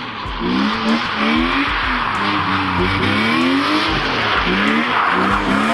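A drifting car's engine revving up and down over and over in one gear, with tyres squealing and scrubbing continuously as the car slides round a circle on wet asphalt.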